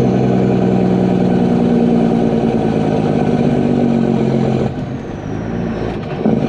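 Diesel dump truck engine running under load through a glass-packed muffler and DPF, a steady deep drone. About four and a half seconds in it drops off for a second or so, with a faint high whine falling away, then pulls again.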